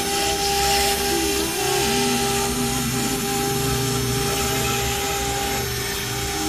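CNC router engraving a sheet: the spindle runs with a steady whine and a hiss from the cutter, while lower motor tones from the moving axes shift in pitch every second or so as the head changes speed and direction along the outline.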